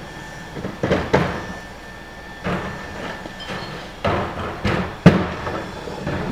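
Plastic recycling carts knocking against the rear hopper of a rear-loading garbage truck as they are tipped, with recyclables clattering in: about half a dozen sharp bangs and thuds, the loudest about five seconds in. The truck's engine idles steadily underneath.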